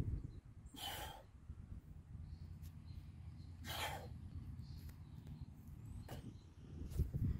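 A man's heavy breathing as he catches his breath after a hard set: a few short, sharp exhales a couple of seconds apart, over a low rumble of wind on the microphone.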